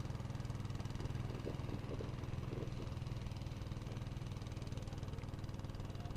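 A small boat engine running steadily at an even low speed, with a constant low hum.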